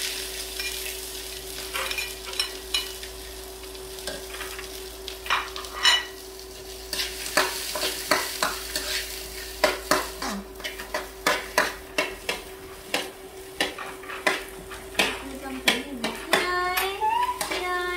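Diced carrots and peas sizzling in a hot steel wok while a metal spatula stirs and scrapes them, clinking against the pan many times, over a steady hum. Near the end a monkey gives a few high squeaky calls.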